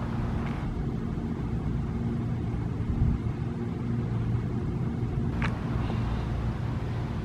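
Low, steady engine rumble, with a sharp click about five and a half seconds in.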